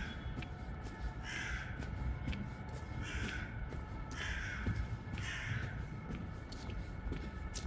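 A crow cawing repeatedly: about five harsh caws, a second or so apart, over a low steady city rumble.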